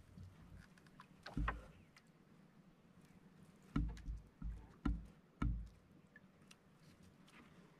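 Dull knocks against a small outrigger boat's hull as a fisherman hauls a handline in hand over hand: one about a second and a half in, then five in quick succession in the middle, over faint drips and light splashes of water off the line.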